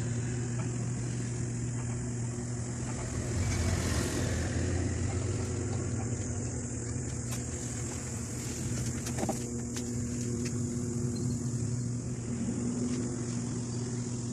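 Steady low mechanical hum with a constant hiss, broken by a few faint clicks.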